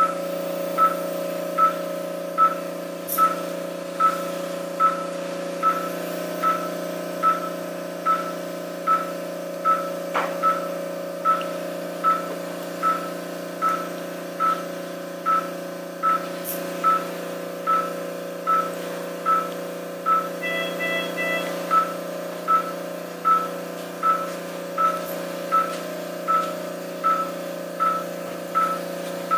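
Operating-room patient monitor beeping with each heartbeat, one steady mid-pitched beep a little faster than once a second, over a steady equipment hum. A brief higher chime sounds once about two-thirds of the way through.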